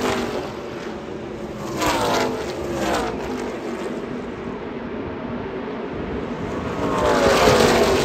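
NASCAR Truck Series trucks' V8 engines passing at racing speed, the pitch falling as each pack goes by. One pack passes at the start, another about two seconds in, and the loudest near the end.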